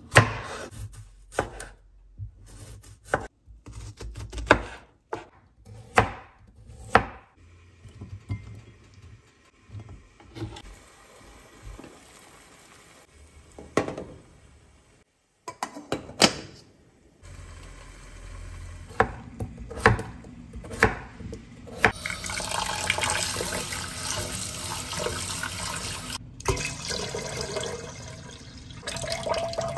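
Kitchen knife slicing through a cucumber onto a wooden cutting board, about six crisp cuts in the first seven seconds. A spoon then knocks a few times in a saucepan of boiling eggs, and in the last third water pours and sloshes steadily as rice is rinsed in a pot in a stainless steel sink.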